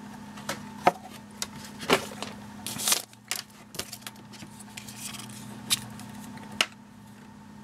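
A hard sunglasses case and a pair of sunglasses being handled: scattered clicks and taps, with a short scrape about three seconds in.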